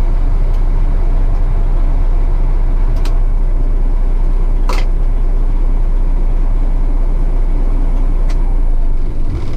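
Semi-truck's diesel engine idling, a steady low rumble heard from inside the cab, with two short sharp clicks about three and five seconds in.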